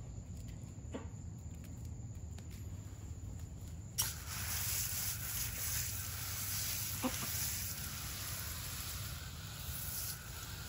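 Garden hose spray wand turned on suddenly about four seconds in, spraying a steady hiss of water onto a fossil clam for about six seconds before it stops.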